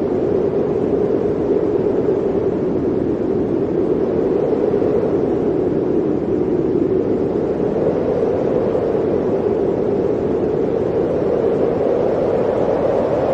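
Blizzard wind blowing steadily, a dense rushing noise with a hollow tone that wavers slowly in pitch and rises a little near the end.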